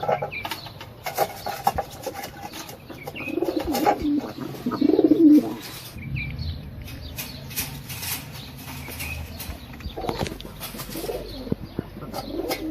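Pigeons cooing, with short flurries of wing flapping in between; the loudest cooing comes about four to five seconds in.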